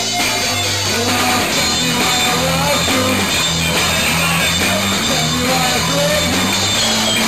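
A live rock band plays loud and steady: electric guitar over a drum kit with cymbals.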